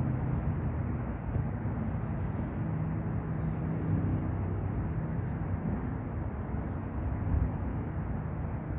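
Steady low background rumble with no distinct sounds in it.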